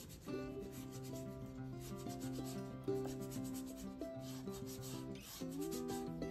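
Oil paintbrush scrubbing across a painting panel in quick repeated strokes, over background music with held notes.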